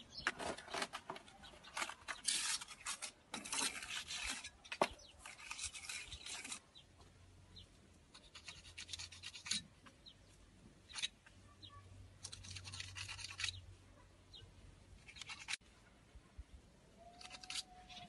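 A hand tool scratching along the mortar joints of a brick wall, in runs of quick back-and-forth strokes. The strokes come thick for the first few seconds, then in shorter bursts with pauses between.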